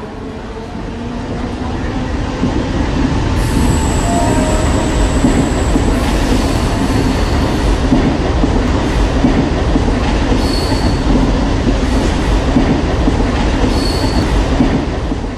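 Mumbai suburban electric local train running past: a loud, steady rumble of wheels on rails that builds over the first few seconds, with thin high squeals now and then. It begins to fade near the end.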